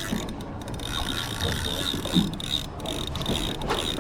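Fishing reel being wound fast to retrieve a lure: a steady whirring of its gears with rapid fine clicking.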